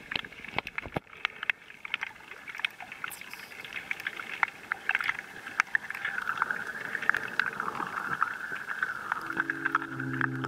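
Underwater reef ambience heard through the camera: a dense crackle of sharp clicks over a steady hiss. About nine seconds in, sustained low organ notes come in.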